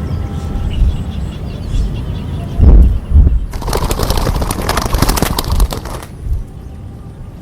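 A dove's wings beating in a rapid flurry for about two and a half seconds, stopping suddenly. A couple of low thumps come just before it.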